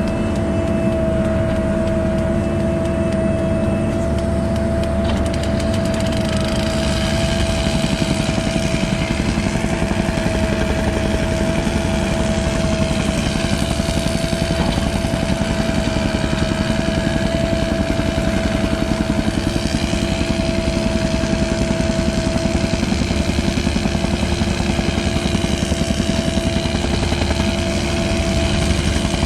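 Mini excavator's diesel engine running steadily under load, with a constant high whine held over the engine drone.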